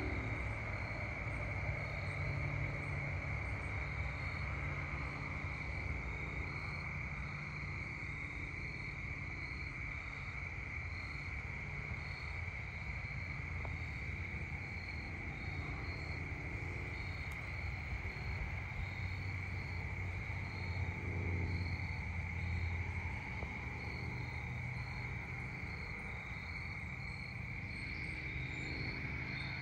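Evening insect chorus of crickets: a steady high trill with a higher call pulsing at a regular beat over it, and a low steady rumble underneath.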